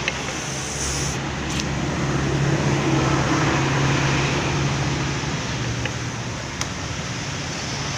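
Road traffic: a vehicle engine hum and tyre noise that swell and fade as it passes, with a couple of light clicks.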